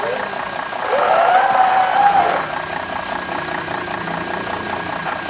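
Toy excavator playing an engine-running sound effect, a rapid even knocking rhythm, with a drawn-out pitched tone that rises about a second in and fades after about a second and a half.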